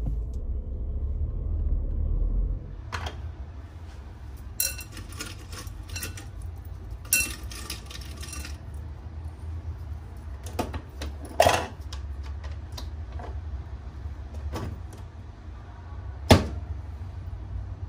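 Road rumble inside a moving car for the first couple of seconds, then clicks, knocks and short clatters of a capsule coffee machine being handled: its lever lifted to load a capsule and snapped shut, with a loud click near the end.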